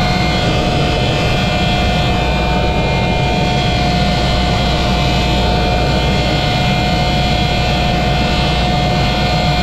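Air seeder cart's fan running with a steady high whine over a low, even rumble of machinery.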